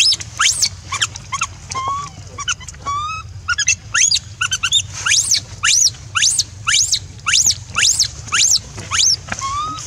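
Baby monkey screaming: a rapid run of shrill squeals sweeping upward in pitch, two or three a second. Between them come a few lower, steady-pitched cries, around two and three seconds in and again near the end.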